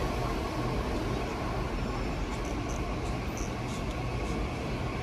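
Steady rumbling railway-station ambience, with a few faint, short high-pitched squeaks or clicks about halfway through.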